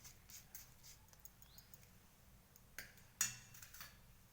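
Faint handling noises of kitchen utensils and a bowl, with two sharp clicks about three seconds in, the second the loudest.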